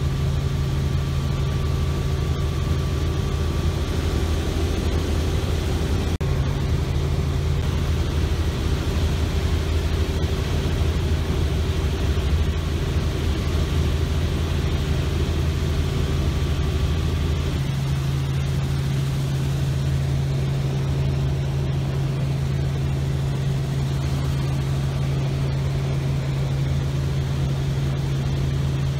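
Light helicopter's engine and rotors heard from inside the cabin: a steady, loud, low drone. Its low tones shift slightly twice, around 6 s and 17 s in.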